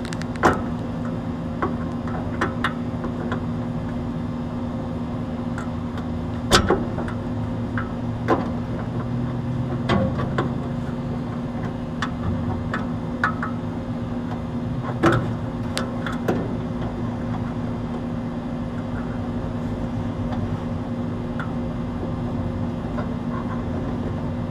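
Scattered sharp metallic clicks and taps as a bolt is worked by hand into an air-conditioner compressor's mounting foot, over a steady machine hum.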